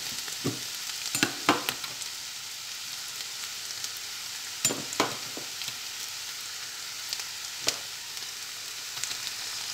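Chopped onions and whole spices sizzling steadily in hot oil in a nonstick kadhai as ginger-garlic paste is added. A handful of sharp clicks, as utensils knock against the pan, are spread through it.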